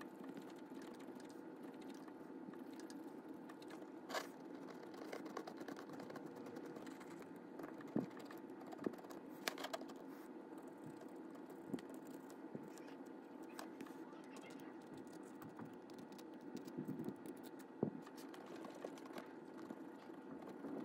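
Faint scraping and scratching of a hobby knife working paint off a model locomotive's small metal wheels, with a few sharp light clicks scattered through.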